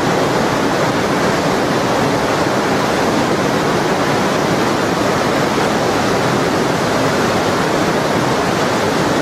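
The Lütschine, a glacial meltwater river, rushing white over boulders through a narrow rock gorge. It makes a loud, steady rush of water with no let-up.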